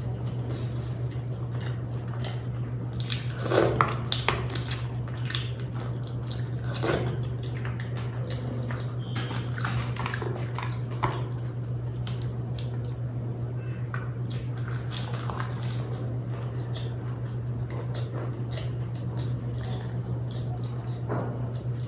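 Close-miked wet chewing and lip smacks of a man eating fried kachori, then the crust crackling and tearing as a kachori is pulled apart by hand, a run of short irregular clicks and smacks. A steady low hum lies underneath.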